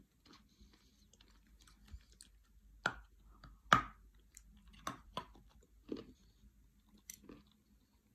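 A person chewing and biting into dense, sticky dried edible-clay cookies: scattered short crunches and mouth clicks about once a second, the loudest bites about three and four seconds in.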